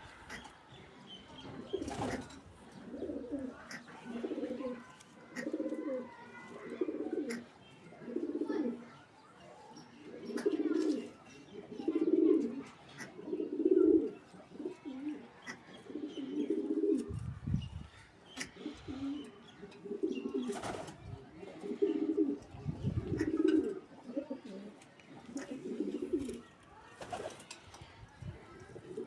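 Racing pigeons cooing, a steady run of low coos about one a second, with a few sharp knocks and low thumps between them.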